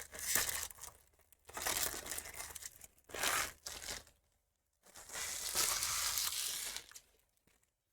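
Trading card pack wrapping being torn open and crinkled by hand, in four bursts, the longest from about five to seven seconds in.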